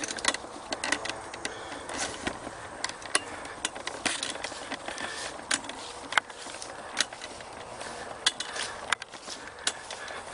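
Irregular sharp clicks and knocks of handling noise, a few a second at times, over a faint outdoor background.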